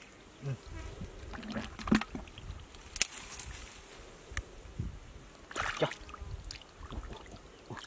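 Hands sloshing and splashing in shallow muddy water, a string of small irregular splashes with a sharper slap about three seconds in.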